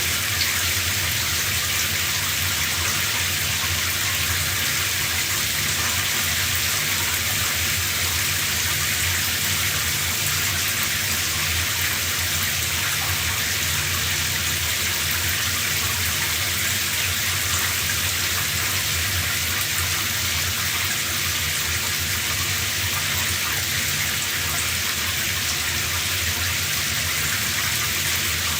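Shower running: a steady spray of water hissing down, with a low rumble underneath, unchanging throughout.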